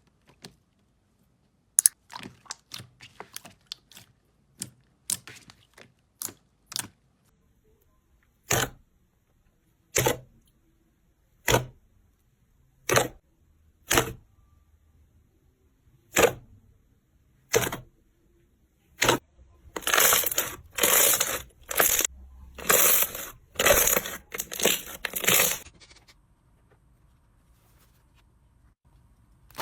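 Slime being pressed and pulled by hand, giving sharp separate pops about every second and a half, then a few seconds of denser crackling about two-thirds of the way through.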